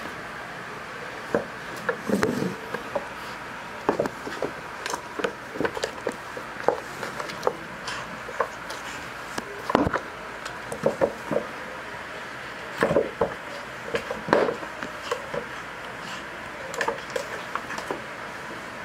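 Cats moving about on a wooden floor: scattered light knocks, taps and scuffs at irregular intervals, with the loudest clusters about two, ten, thirteen and fourteen seconds in, over a steady background hiss.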